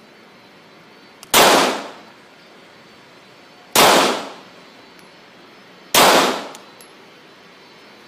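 Glock 17 9 mm pistol fired three times, slow single shots a little over two seconds apart, each shot ringing off in a short echo that dies away in about half a second.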